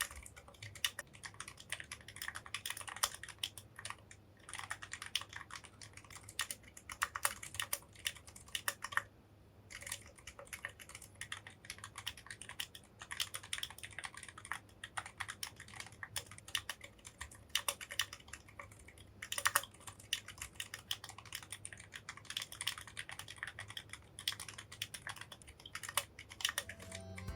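Typing on a mechanical keyboard fitted with silent tactile switches, stock Kailh Midnight Pros and Durock T1 Shrimps: a quick run of soft, muted keystrokes with a short pause about a third of the way through.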